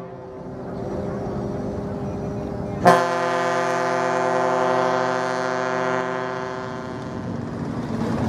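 Passenger ship KM Adithya's whistle, booming as the ship manoeuvres into harbour. One blast cuts off at the very start, and a new one begins sharply about three seconds in. That blast holds one deep steady note for about four seconds and then fades.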